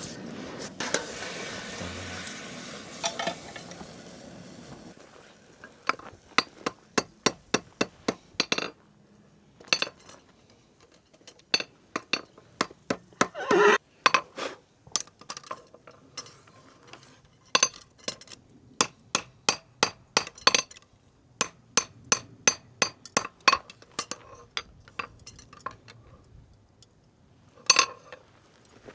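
A farrier's hammer striking metal in runs of quick, sharp taps, about three a second, with short pauses between runs. A soft noise fades out over the first few seconds.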